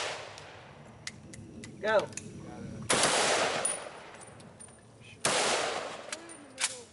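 Two loud rifle shots about two and a half seconds apart from an M1A1 carbine and an M1 Garand fired side by side, each fading out over about a second, with a few faint clicks between them.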